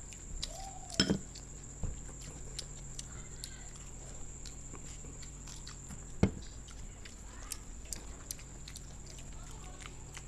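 People chewing crisp samosas with irregular crunches, clicks and lip smacks throughout. There is a louder knock about a second in and again about six seconds in.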